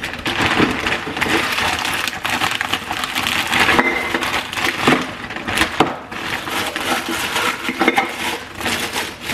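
Crinkling plastic as a bag of frozen chicken breasts is opened and emptied into a plastic-lined slow cooker, with the hard frozen pieces knocking as they drop in; a few sharper knocks come about five to six seconds in.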